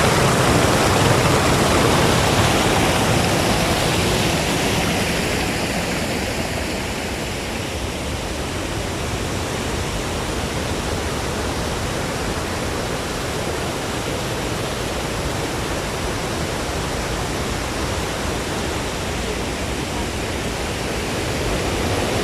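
Steady rush of water pouring over a waterfall, a little louder in the first few seconds and then even.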